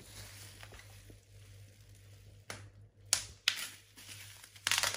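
Clear plastic packaging bag crinkled and pulled open by hand: a few sharp crackles past the middle, then thicker rustling near the end.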